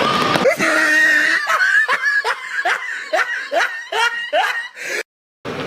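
A person laughing, dubbed in as a comedy sound effect over the game audio: a run of about ten short 'ha' syllables, each rising in pitch. The laugh cuts off abruptly near the end.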